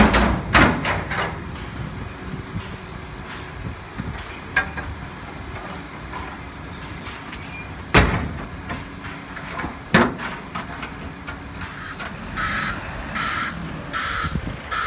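Steel shipping-container doors being shut and latched: loud metal clanks at the start and again about eight and ten seconds in, over a steady truck engine idling. Near the end a crow caws repeatedly, about once every half second or so.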